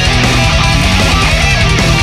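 Heavy metal band recording: electric guitars over a fast, steady beat, loud and dense.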